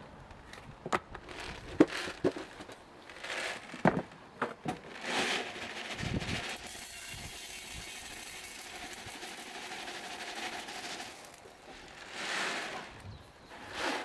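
Clicks and knocks of a plastic jar being handled, then granular leek and onion fertiliser poured from the jar onto a metal shovel blade: a steady hissing rattle for about four seconds.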